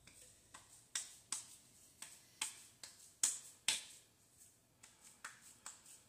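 Hands patting and pressing a portion of raw seasoned ground beef into a burger patty: an irregular run of about a dozen soft, wet slaps, the loudest in the middle.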